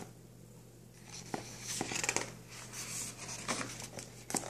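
Paper pages of a book being handled and turned, rustling and rubbing in a series of quick swishes with small clicks for about three seconds.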